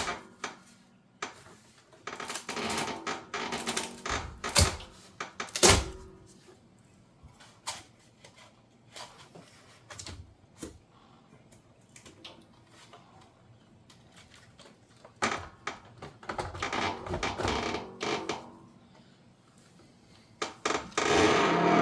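Irregular clicks, knocks and short scrapes from hands and tools working on a dishwasher door's inner panels and parts, with quiet gaps between them.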